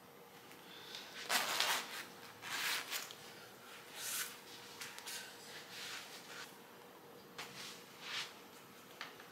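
About seven soft rustles and bumps, a second or so apart, from someone moving about and handling things, over a faint steady hum.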